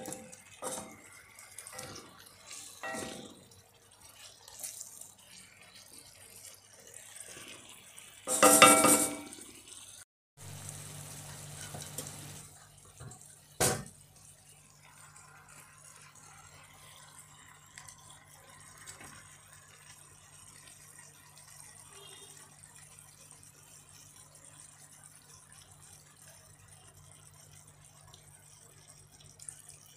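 Cooking sounds at a cast-iron frying pan: a wooden spoon knocks and scrapes against the pan a few times, a loud ringing metallic clang comes about nine seconds in, and a sharp click follows a few seconds later. A steady low hum runs under the second half.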